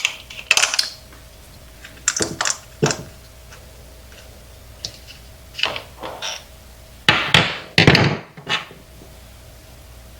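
Scattered clicks and knocks of the plastic and metal parts of a personal watercraft water pressure regulator being handled and worked apart by hand. The loudest cluster of knocks comes about seven to eight seconds in.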